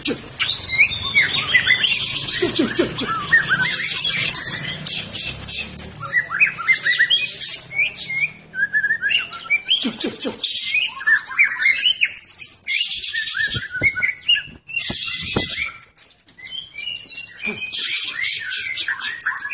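White-rumped shama (Medan murai batu) singing continuously and hard: quick, varied whistled notes and glides, broken by bursts of harsh, dense rattling notes. This is the worked-up, agitated full song that shama keepers call gacor.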